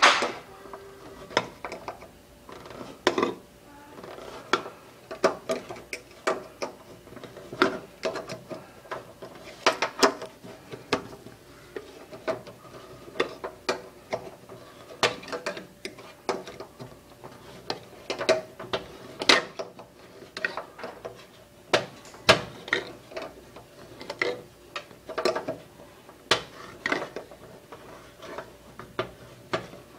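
Can-opener blade of a stainless steel U.S. military camp knife, worked one-handed, punching and levering around the rim of a tin can: a string of sharp metal clicks, about one or two a second, with a faint ring from the can.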